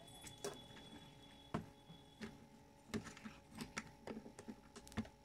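Light, irregular clicks and taps of tools and small parts handled on a circuit board while an amplifier IC is taken out of a home theater's amplifier board. A faint steady high whine runs through the first half and stops.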